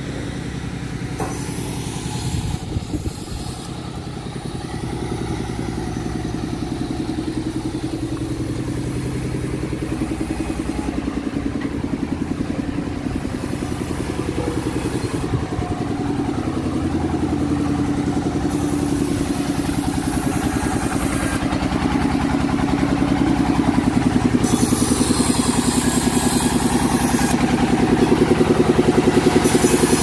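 An engine running steadily, with a fast even pulse, getting gradually louder toward the end.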